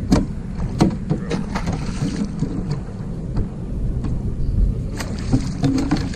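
Knocks and clatter of gear against a canoe over a steady low rumble of wind and handling on the microphone, as a hooked snakehead is brought to the net.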